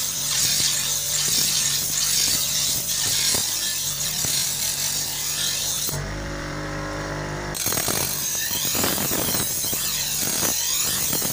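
Sickle blade being ground on a spinning motor-driven grinding wheel: a steady gritty hiss of steel on the abrasive wheel over the motor's hum. About six seconds in the blade is lifted off for a second and a half, leaving only the wheel's motor humming, then the grinding resumes.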